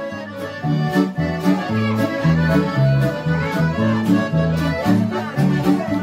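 Instrumental music with a steady beat and a bass line.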